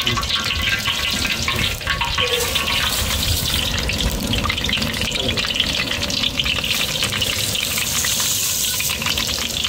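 Hot coconut oil in a large kadai sizzling with dense crackling as mustard seeds, fennel and cumin fry in it for tempering; chana dal is poured in near the end.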